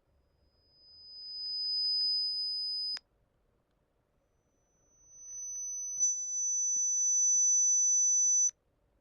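Two high pure test tones from an online lowest-discomfort-level hearing test. Each swells steadily louder and is then cut off abruptly: the first lasts about three seconds, and after a short gap a second, slightly higher tone lasts about four. The rising level is the test raising each tone until it is stopped at the point of discomfort.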